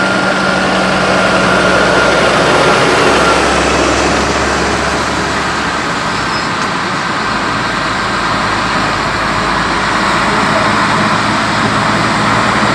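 John Deere 7530's six-cylinder diesel engine running steadily under heavy load as the tractor drags a weight-transfer sled along a dirt pulling track. A thin high whine sits over it for the first few seconds.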